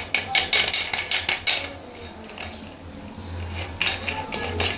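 Quick clinks and knocks of hard objects being handled: a dense run in the first second and a half, then two more near the end, over a steady low hum.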